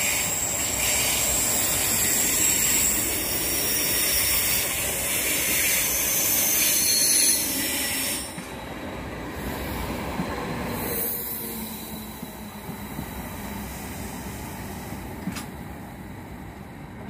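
Vy Class 75 (Stadler FLIRT) electric multiple unit running into the platform, a loud hiss with a high-pitched squeal over a low rumble. About eight seconds in it drops suddenly to a quieter rumble.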